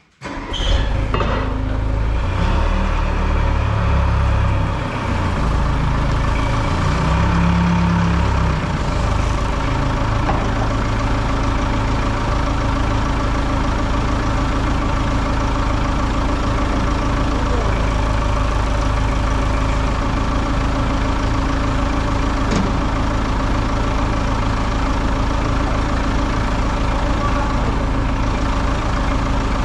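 Portable band sawmill's engine running steadily. It cuts in abruptly at the start, its low pitch shifts a little over the first several seconds, and it then holds steady.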